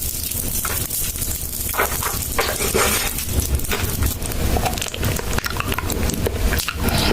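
Close-miked eating: irregular crunching and crackling clicks, as of biting and chewing crisp food such as cookies, over a steady low rumble.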